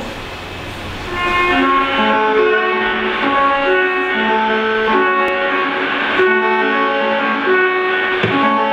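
Instrumental music: a melody of short, quickly changing notes that comes in about a second in, after a faint hiss.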